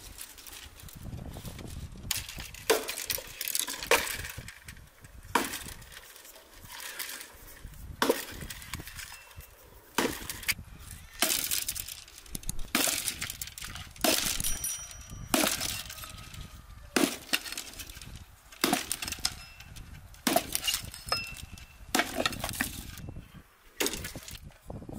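Hatchet chopping dry branches on a wooden stump: a long series of sharp chopping strikes, one every one to two seconds.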